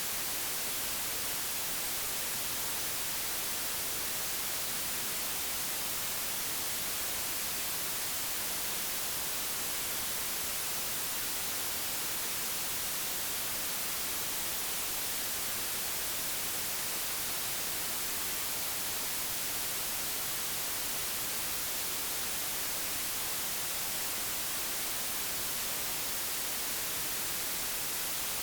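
Steady digitally generated white noise: an even, unchanging hiss, brightest in the treble.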